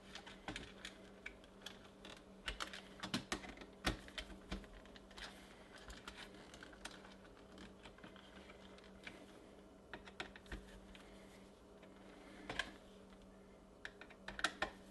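Faint, irregular small clicks and taps of a screwdriver and fingers working twisted wire pairs under the terminal screws on a NuTone intercom speaker station's circuit board, in a few short clusters.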